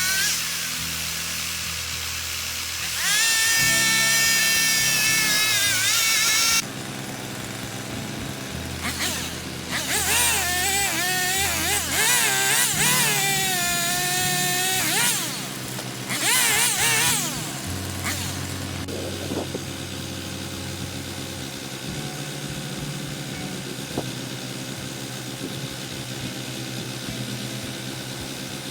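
Background instrumental music, with stepping bass notes under a wavering melody.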